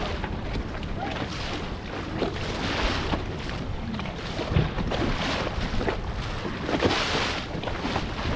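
Wind buffeting the microphone over water splashing around a powerboat on open water, the noise swelling and easing in gusts.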